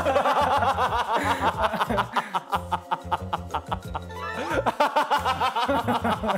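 People laughing hard in quick repeated bursts, over background music with a pulsing bass.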